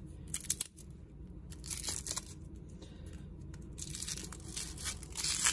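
Clear plastic wrap being torn and crinkled off a stack of blank game cards, in short bursts of tearing and rustling: one about half a second in, another around two seconds, and a longer stretch near the end.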